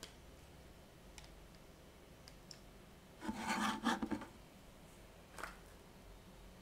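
An old Soviet 3ГДШ-1 loudspeaker being handled on top of a chipboard cabinet: about a second of rubbing and scraping as it is tilted and shifted, a little past three seconds in, with a few faint clicks before and after.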